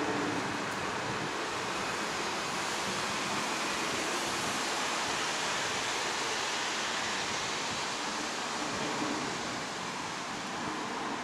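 Airbus A320 jet engines at takeoff thrust during the takeoff roll on a wet runway: a steady, loud rushing noise that eases off slightly near the end.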